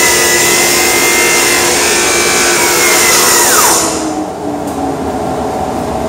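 Table saw and dust collector running together while a board is fed through the saw, with a high whine over a lower hum. About three and a half seconds in, the power cuts out as the overloaded GFCI outlet trips, and the motors wind down: the whine slides quickly downward while the hum sinks slowly.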